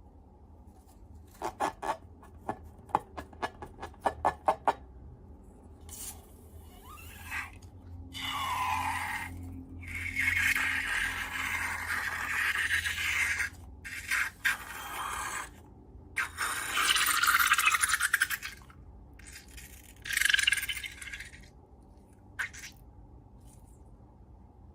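Slime and balloon handling: a quick run of sharp clicks, then several bursts of scraping and rubbing, loudest near the two-thirds mark.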